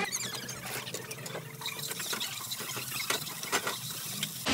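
Noodles stir-frying in a wok: a faint sizzle with scattered light clicks of chopsticks against the pan.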